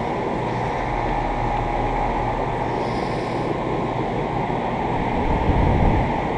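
Central air conditioner outdoor condenser unit running with a steady rushing noise. A low rumble swells briefly near the end.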